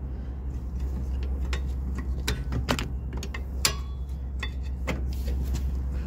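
Screwdriver levering against a rear brake caliper to push its piston back: scattered sharp metallic clicks and scrapes, over a steady low hum.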